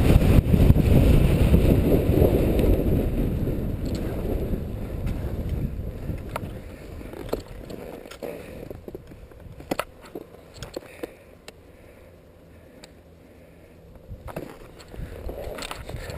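Skis sliding over packed snow with wind rushing over the camera microphone, loud at first and fading steadily as the skier slows almost to a stop. A few sharp clicks come in the middle, and the noise picks up slightly near the end.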